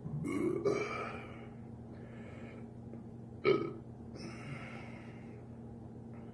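A man burping while drinking malt liquor. A sudden, loud belch comes about three and a half seconds in, with softer breathy, throaty sounds before and after it.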